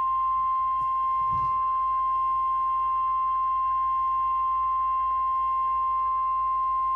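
NOAA Weather Radio warning alarm tone: one steady, loud, single-pitch tone near 1 kHz. It is the alert signal broadcast just ahead of a severe thunderstorm warning.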